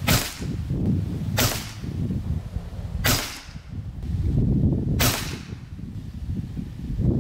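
Hatsan Factor RC Sniper Long PCP air rifle in .22 calibre firing four shots, each a short sharp crack, about one and a half to two seconds apart.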